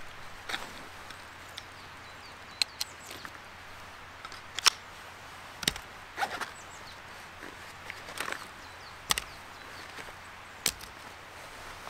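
Plastic buckles clicking and nylon webbing straps rustling as gear is fastened onto a tactical backpack: a handful of sharp clicks a second or two apart, the loudest a little before halfway, with softer scraping handling noise between them.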